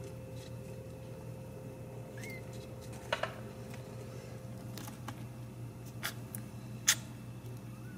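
Newborn Ragdoll kittens suckling and mouthing each other, making a few short, sharp wet clicks. The loudest click comes about seven seconds in, over a steady low hum.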